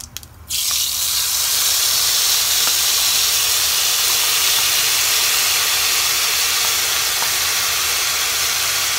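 Cashew-raisin spice paste hitting hot tempering oil with cumin and dried chilli: loud sizzling that starts suddenly about half a second in and holds steady as the paste fries.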